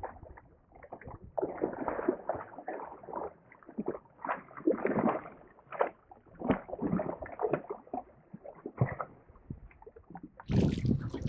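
Redfin perch thrashing at the surface and being scooped into a landing net, making irregular splashes and sloshing water. A louder splash comes near the end.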